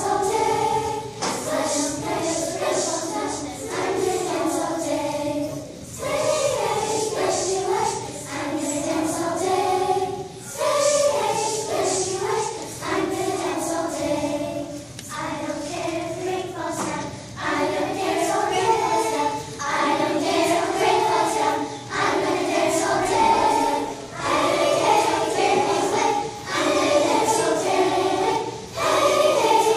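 Children's choir singing a song in phrases a few seconds long, with short breaks between them.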